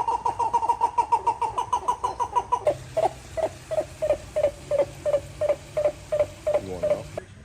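An animal calling in rhythmic, pitched pulses: a fast run of about eight calls a second, then, after an abrupt change, a slower run of about three a second, ending in a call that slides down in pitch.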